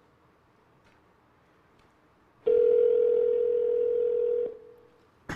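Telephone ringback tone from an iPhone placing a call: a pause, then one steady ring about two seconds long starting partway through, while the call waits to be answered. A short click follows near the end.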